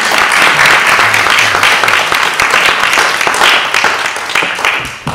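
Audience applauding: loud, dense clapping that thins out near the end, with a short low bump as it stops.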